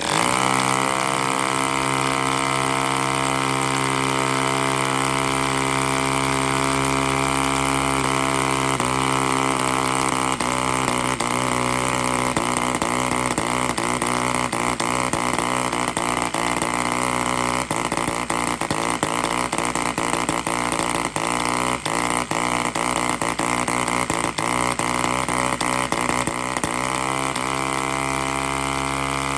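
Nova-1 4.5cc side-port model diesel (compression-ignition) engine running at speed, spinning a 14x7 propeller. Its pitch wavers up and down from about eight seconds in, as the compression is adjusted by hand, then settles steady near the end.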